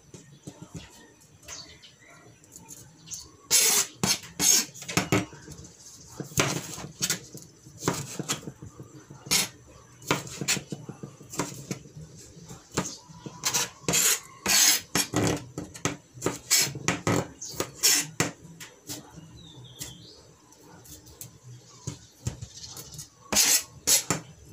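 Kitchen knife cutting tomatoes on a plastic cutting board: irregular runs of sharp knocks as the blade strikes the board, separated by short pauses.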